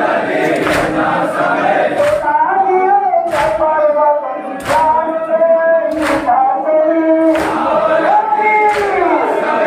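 A crowd of men chanting a noha (Muharram lament) together, with sharp strikes of matam, hands beating chests in unison, in a steady beat a little more than one a second.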